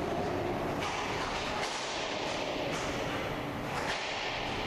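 Inline hockey skate wheels rumbling steadily on the rink floor, with a few sharp clacks of sticks or puck.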